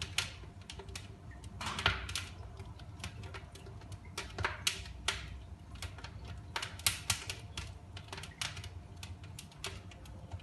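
Fire in a fireplace crackling: irregular sharp pops and snaps over a steady low rumble of the flames.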